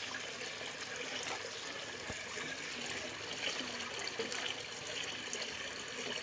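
Water running and splashing in a steady trickle.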